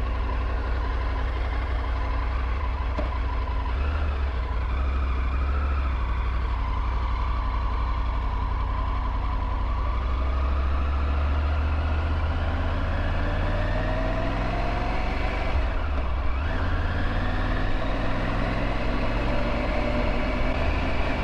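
Triumph Tiger 900 GT's three-cylinder engine running under way, with a steady low rumble beneath. Its pitch climbs as the bike accelerates, drops briefly about three-quarters of the way through, then climbs again.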